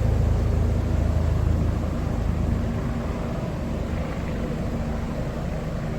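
A steady low mechanical hum, like an engine or motor running, easing slightly about two and a half seconds in.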